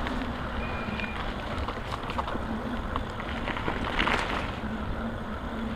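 Steady rumble of an e-bike ride over rough ground, with wind on the microphone and a faint motor hum that comes and goes.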